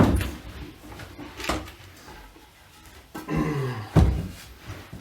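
Handling knocks and rustles while fitting the cloth backing onto a reclining chair's frame: scattered light knocks, a short low sound falling in pitch just after three seconds, and one sharp loud knock about four seconds in.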